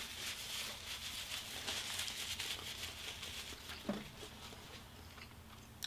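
Close-up mouth sounds of chewing extra-crispy fried chicken: a dense, fine crackle of crunching breading that fades over the last couple of seconds, with a brief low sound about four seconds in.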